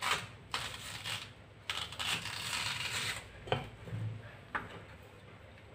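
Kitchen knife cutting a raw elephant yam in half on a wooden chopping board: a few short scrapes and a longer scraping stroke through the tuber, then two sharp taps of the blade on the board about a second apart.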